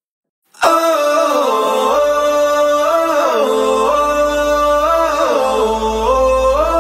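Background music: a pop song starts abruptly about half a second in, with a sustained sung or synth melody gliding up and down over a steady bass.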